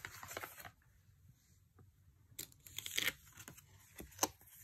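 Tarot cards being handled and turned: short papery rustles of card stock sliding against card, one at the start and another around two and a half to three seconds in, then a sharp card snap a little after four seconds.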